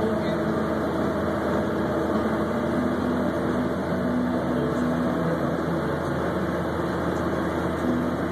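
Snowcat diesel engine running steadily, a constant drone with a low hum.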